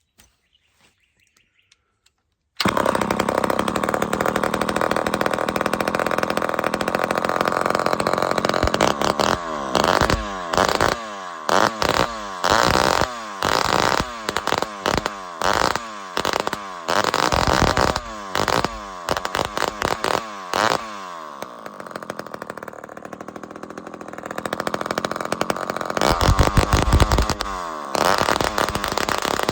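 Two-stroke chainsaw with no clutch, its chain welded to the bar, catching and running about two and a half seconds in. It is blipped on and off a dozen or so times, drops to a lower idle, then revs up again. It runs with a slight misfire that the owner puts down to old fuel in the carburettor.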